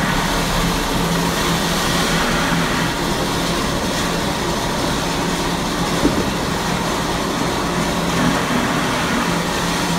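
A vehicle engine running steadily, with a faint knock about six seconds in.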